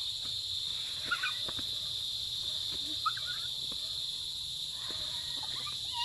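Steady, high-pitched insect chorus droning in the cornfield, with a few short chirping calls about a second in and about three seconds in.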